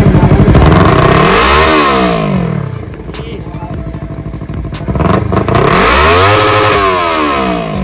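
Kawasaki Ninja 300's parallel-twin engine being revved while stationary. It is held at high revs, drops back toward idle about two seconds in, is revved up again about five seconds in, and falls off near the end.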